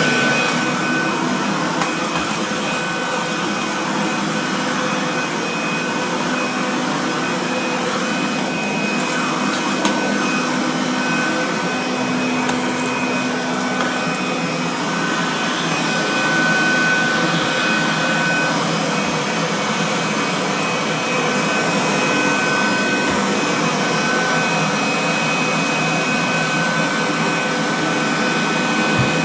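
Kirby Classic 3 vacuum cleaner running steadily while vacuuming the floor, a continuous rush of air with a steady high whine.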